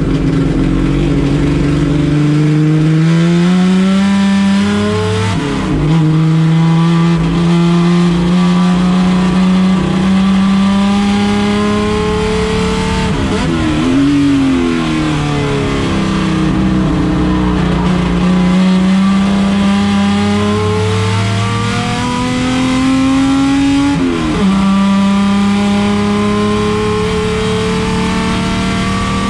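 Chevrolet Opala race car engine running hard at high revs, its pitch climbing slowly through the gears and stepping down at gear changes about five seconds in and near the end. About halfway the pitch drops sharply and comes straight back up.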